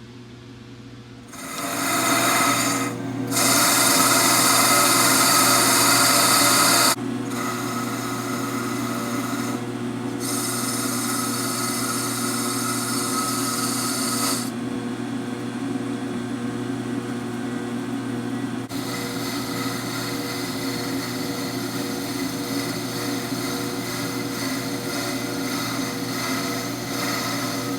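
A power tool abrading or cutting metal under a steady machine hum, in several rough scraping passes that start, stop and change in strength.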